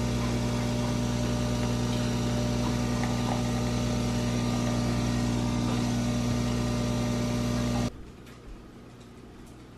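Breville coffee machine running as it brews coffee into a glass: a steady machine hum that cuts off suddenly about eight seconds in, leaving faint room tone.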